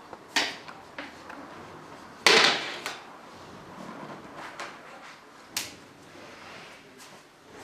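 Hard knocks and clattering of shoe-cabinet panels being handled and fitted during assembly. There are a few separate knocks, with the loudest, longer clatter about two seconds in.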